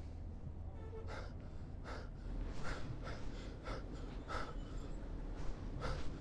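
A person breathing hard in quick, rasping breaths, about one and a half a second, over a steady low hum.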